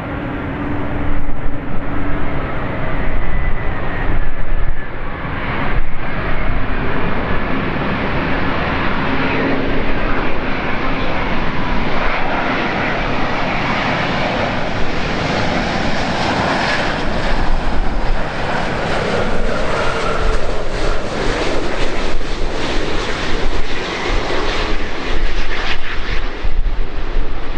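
Jet airliner on landing approach passing close by: the engine noise swells through the first half and is loudest and brightest about two-thirds of the way in.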